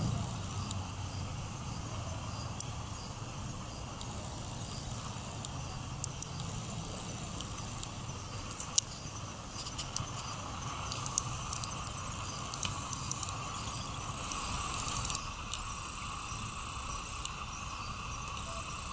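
Outdoor ambience: a steady high-pitched insect drone over a low background rumble, with a few faint scattered clicks and ticks, most of them in the middle part.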